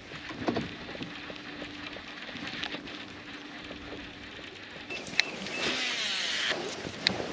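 A cast with a baitcasting rod and reel: sharp clicks from the reel, then a whir of line running off the spool for about a second, followed by another click as the reel engages. Before the cast there is a faint steady hum and light handling noise.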